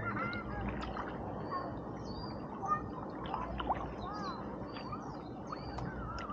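Many small birds chirping, their short calls overlapping, over a steady wash of water noise. A couple of sharp drips or splashes stand out near the middle.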